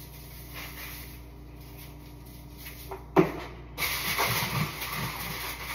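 Kitchen handling sounds while a seasoned whole catfish is being prepared: a faint low hum, then one sharp knock a little past three seconds in, followed by continuous rubbing and rustling with soft thumps.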